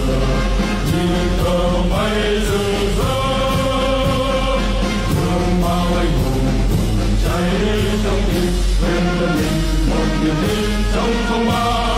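Music with singing voices, playing steadily throughout.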